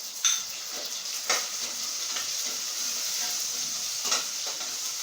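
Sliced tomato sizzling in hot oil with sautéed garlic, onion and chili, with a steady hiss, stirred with a spoon that knocks against the pot three times: just after the start, about a second in, and about four seconds in.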